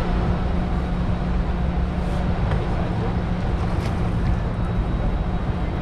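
A boat's outboard motor running steadily with a constant low hum, with wind and water noise over it.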